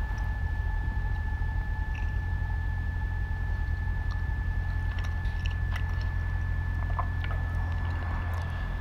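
A loud, steady low droning hum with a thin, steady high-pitched whine over it. Faint scattered clicks run through it, fitting a man chewing a sandwich.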